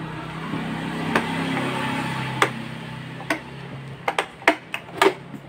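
Hard plastic clicks and knocks from a universal car armrest console as its lid latch is pressed and the padded lid slides open. The clicks come singly about a second in and again over the last couple of seconds, over a steady low hum that fades out about three and a half seconds in.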